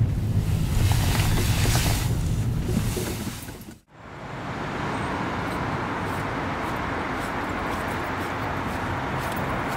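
Steady engine and road rumble heard inside a moving car's cabin. About four seconds in, it fades out and gives way to a steady hum of outdoor traffic.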